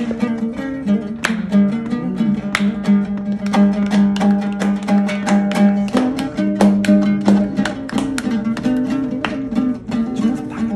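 Background music: quick plucked guitar-like notes over a steady held low note.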